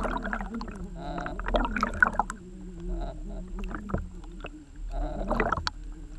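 Underwater gurgling and sloshing of water around a camera moving through a lake, with a wavering, warbling tone and many scattered clicks and knocks.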